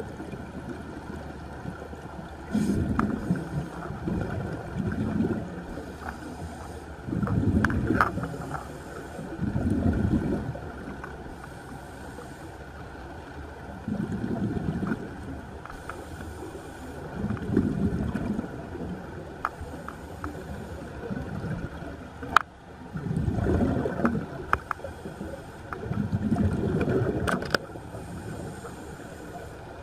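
Scuba diver's exhaled regulator bubbles rumbling and gurgling underwater in bursts, one burst every few seconds with each breath, with a few sharp clicks between them.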